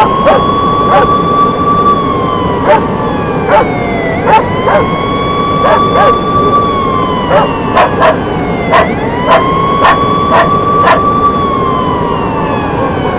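Outdoor warning siren wailing, rising quickly, holding and sliding down again about every four and a half seconds, three cycles in all, with dogs barking repeatedly over it.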